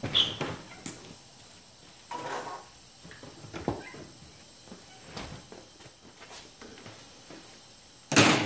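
Scattered knocks and clatter from a person moving about off to fetch a pair of scissors and coming back, with a louder clunk about eight seconds in as he returns to the table.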